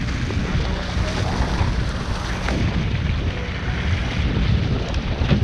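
Wind buffeting the microphone over the rush of water churning along the hull of a moving boat at sea; a steady, loud rumble with no breaks.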